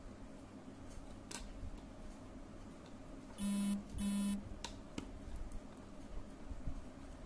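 Two short electronic beeps in quick succession, each a steady buzzy tone lasting about a third of a second, a little past the middle. A few faint clicks from jumper wires being handled come before and after.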